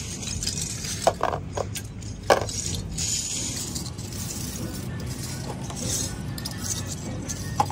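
Metal oil-filter parts clinking as they are handled: a few sharp clinks in the first couple of seconds, over a steady low hum.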